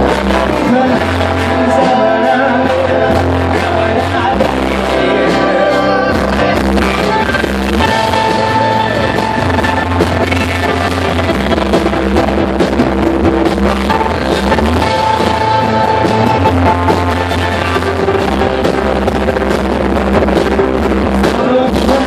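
A rock band playing a song live, with a singer's voice over the band.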